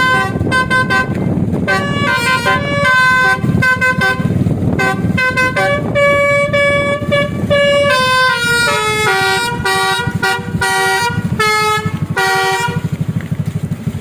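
Basuri multi-tone musical air horn playing a fast tune of short and held notes, over a low steady rumble. The horn stops about a second before the end, leaving only the rumble.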